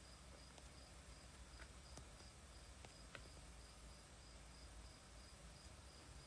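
Near silence: room tone with low hum and hiss, a faint high-pitched pulsing chirp repeating about three times a second, and a few faint ticks.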